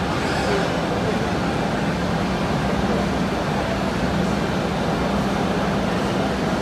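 5-axis CNC router spindle running while its bit cuts a curved wooden part: a steady hum over a constant hiss.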